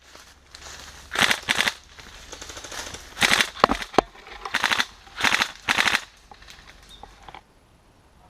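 Airsoft electric guns firing several short full-auto bursts, each a quick run of rapid shots, some in close pairs, between about one and six seconds in.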